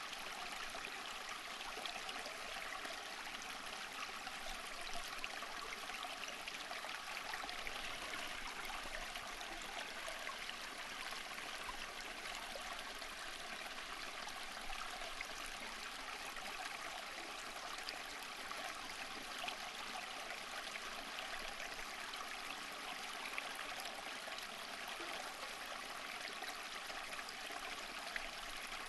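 Running water splashing and trickling steadily, with a light, bright sound and little deep rumble.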